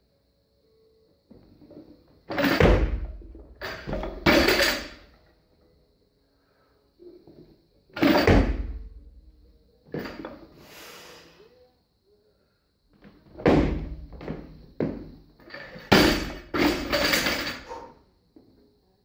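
Barbell loaded with 100 kg of rubber bumper plates being lifted in a clean and jerk: several bursts of metallic clanks and heavy thuds as the bar is pulled and caught. Near the end the bar is dropped onto the platform, landing with a loud bang and bouncing.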